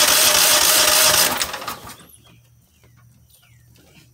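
Cub Cadet HDS 2145 riding tractor's engine being cranked by its electric starter without catching; the cranking stops about a second and a half in. The tractor won't start, and the owner suspects a fuel problem and a stiff choke.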